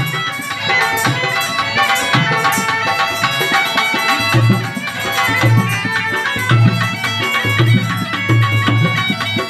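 Been (snake charmer's gourd pipe) playing a folk melody, with a steady drumbeat joining in about four seconds in.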